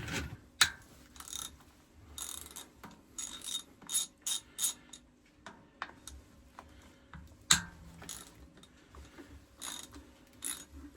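Hand ratchet wrench clicking in short, irregular runs as fasteners are backed off during disassembly, with a sharper single metal clink about seven and a half seconds in.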